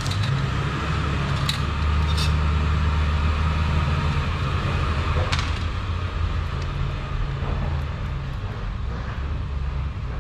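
A motor running with a steady low hum that eases off near the end, with a few sharp clicks over it.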